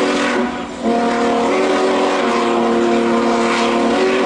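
Union Pacific Big Boy 4014's chime steam whistle blowing, a loud chord of several pitches over the hiss of escaping steam, cut briefly about half a second in and then held again.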